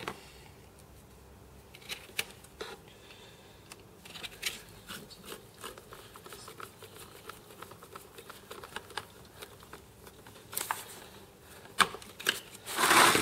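Hands handling and fitting a plastic cable tidy and wiring into a camera unit's base: scattered small clicks, taps and rustles, with a louder brief rustle near the end.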